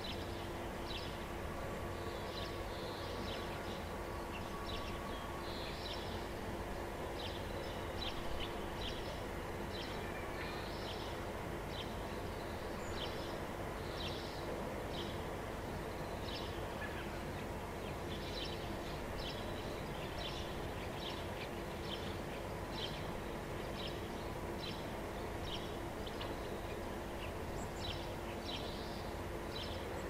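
Outdoor ambience of small birds chirping, short high notes coming one or two a second in irregular clusters, over a steady low rumble and a faint steady hum.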